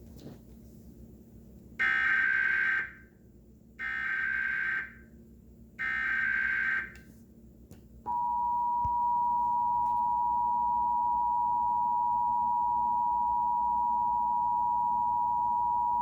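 Emergency Alert System tones for a National Periodic Test. First come three harsh, buzzing bursts of SAME header data, each about a second long and about two seconds apart. Then, about eight seconds in, the steady two-tone EAS attention signal starts and holds for about eight seconds.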